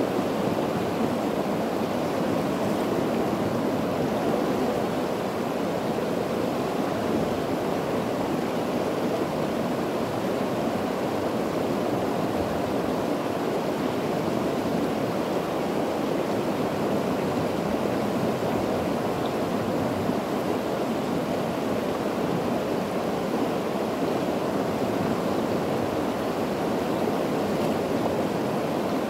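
Fast-flowing river water rushing steadily, an even hiss that holds at one level.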